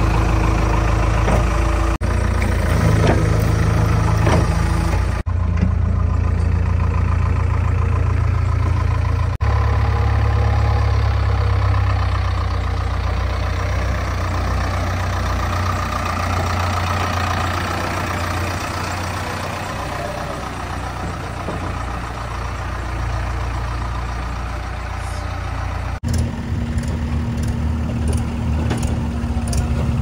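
JCB 3DX backhoe loader's diesel engine running, a steady low engine note whose pitch and loudness change abruptly several times.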